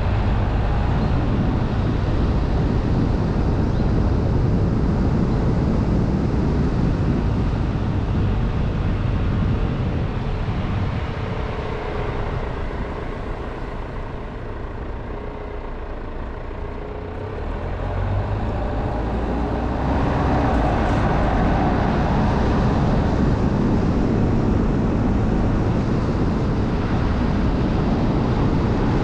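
Car driving along a winding road: steady engine and tyre noise that falls away as the car slows for a tight bend about halfway through, then picks up again as it pulls away.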